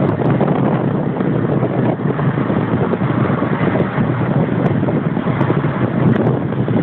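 Steady noise of a car driving on a wet road, engine and tyres, with wind buffeting the microphone.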